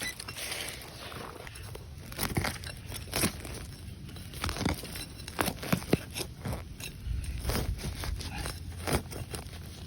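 Irregular crunching and crackling of dry ground litter and soil being disturbed, a string of short uneven crunches with no steady rhythm.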